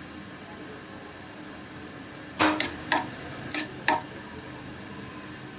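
Cashew nuts frying in oil in a pan with a steady low sizzle; about two and a half seconds in, a spoon or spatula knocks and scrapes against the pan four times in quick succession as the nuts are stirred.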